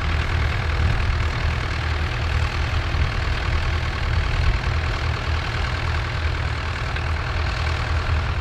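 Vintage Nuffield tractor's engine running steadily under load as it pulls a plough, with an even, low, pulsing beat.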